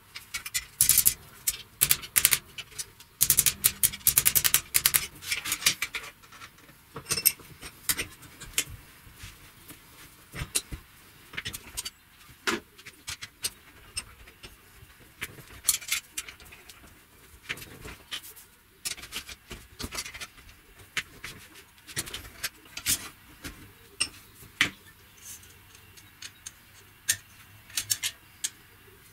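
Hand work on a thin steel rod at a bench vise: rapid scratching strokes for about the first six seconds, then scattered metallic clicks and taps as the rod is handled in the vise jaws.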